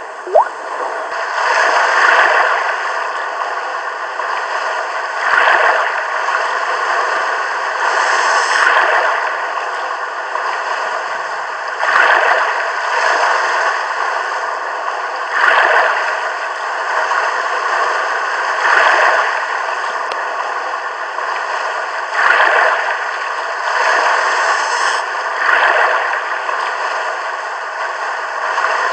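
Steady rushing, water-like noise that swells and eases about every three and a half seconds, like looping waves.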